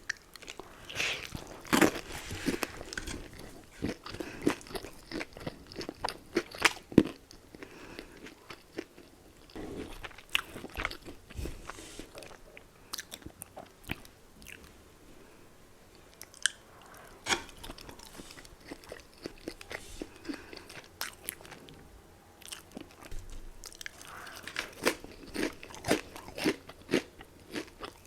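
Close-miked biting and chewing of crispy Popeyes fried chicken: sharp crackling crunches of the breading come in clusters, with a couple of short quieter lulls between bites and denser crunching near the end.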